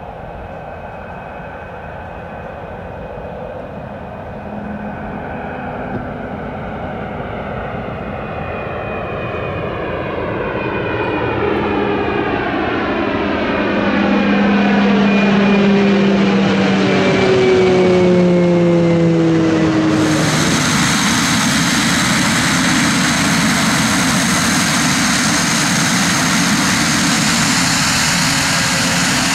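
Single-engine turboprop flying low overhead: its propeller and engine drone grows louder and falls in pitch as it passes. About twenty seconds in, the sound changes abruptly to a Pilatus PC-12 turboprop running on the ground, a steady propeller drone with a high turbine whine.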